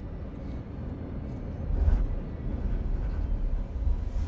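Deep, steady rumble of an airliner cabin in flight, swelling louder about two seconds in.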